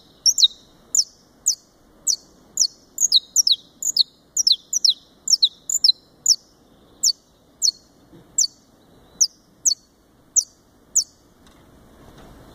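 Saffron finch (Brazilian subspecies, Sicalis flaveola brasiliensis) singing a long series of sharp, high, downward-slurred notes, about two a second and bunched faster in the middle. The song stops about a second before the end.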